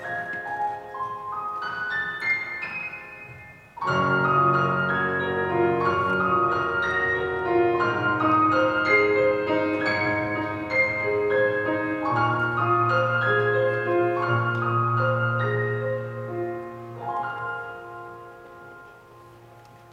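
Grand piano played solo: a rising run of single notes, then from about four seconds in a fuller, louder passage of chords over sustained bass, which thins out and fades near the end.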